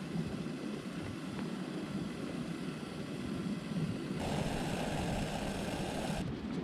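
Honda CB500X motorcycle's parallel-twin engine idling steadily while it charges a power bank, with a brighter hiss added for about two seconds after the middle.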